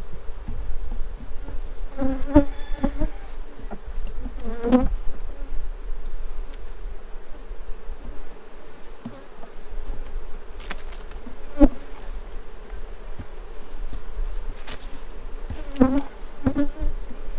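Honeybee colony buzzing steadily in an opened hive box, with louder buzzes as bees pass close by a couple of seconds in and again around five seconds. A few sharp knocks of wooden hive frames being set back in the box, the sharpest about twelve seconds in.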